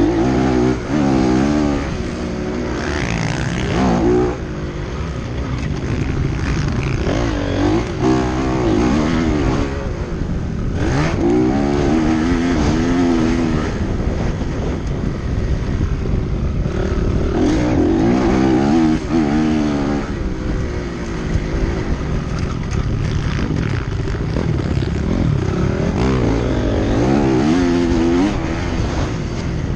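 Motocross motorcycle engine racing, its pitch rising and falling again and again as the throttle is opened and shut and it shifts gears, over a steady low rumble.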